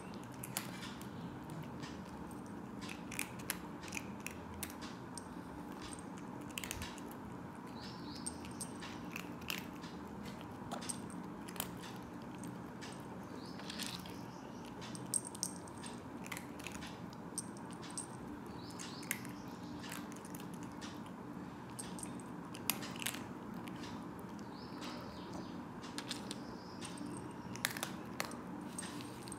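Domestic calico cat eating dry kibble: irregular crunches as it bites and chews the pellets.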